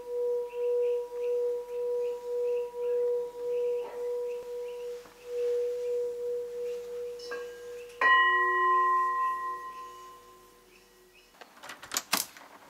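A singing bowl rings on one steady low tone that swells and fades in a slow, even wobble. About eight seconds in, another metal bowl is struck and rings higher, fading over a couple of seconds. A few sharp clicks come near the end.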